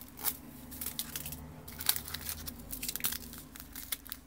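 Rustling, crinkling and light clicking of packaging being handled: small pH buffer-powder sachets and a clear plastic case with paper inserts. The clicks come irregularly, the sharpest about two seconds in.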